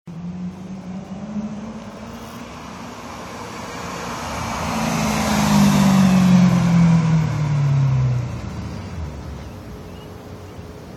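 A BMW E92 M3's V8 with an aftermarket exhaust, giving a deep bass note, approaches and drives past. It is loudest about six seconds in, then drops in pitch and fades as the car pulls away.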